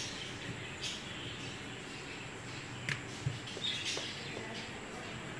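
Wooden rolling pin rolling out paratha dough on a wooden board, giving a few soft low knocks, along with several short high chirps that dip in pitch.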